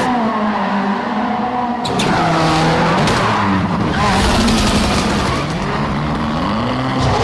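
Ford Fiesta rally car's engine revving hard, rising and falling again and again as it is held in a drift, with its tyres skidding on the pavement. The engine note breaks off and picks up again sharply about two seconds in.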